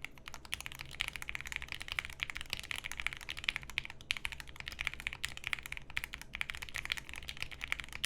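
Typing on a Bepovan mechanical keyboard with Lil Tyke switches lubed with 205g0, a half plate and PBT keycaps: a dense, continuous stream of keystroke clacks.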